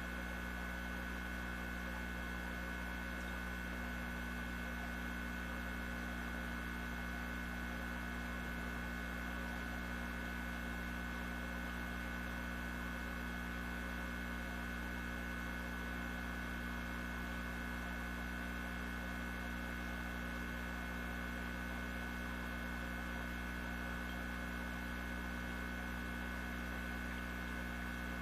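Steady electrical hum with a constant high-pitched whine, unchanging, with no other sound standing out.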